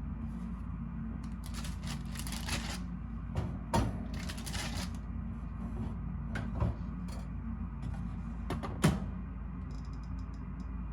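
A few sharp clicks and knocks, the loudest about a second in from the middle and near the end, with two short rustling stretches, over a steady low hum.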